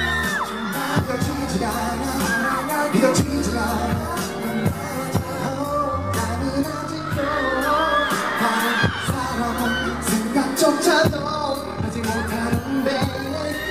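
Live Korean pop music played loud through concert loudspeakers: a male singer sings into a hand-held microphone over a backing track with heavy bass and a beat.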